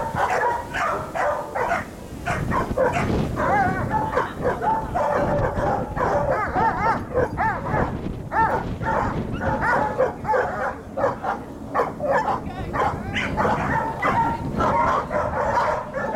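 A large leashed dog barking hard and fast at a decoy in bite-work training, two or three barks a second, with high wavering whines and yelps mixed in.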